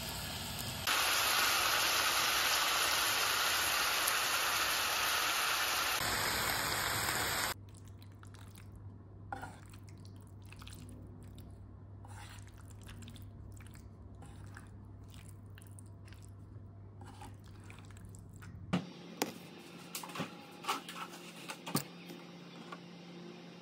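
Pot of pasta water at a rolling boil: a steady bubbling hiss for the first seven seconds or so. It then gives way to a quiet low hum with faint ticks. Near the end come a string of sharp clicks and knocks from kitchen handling.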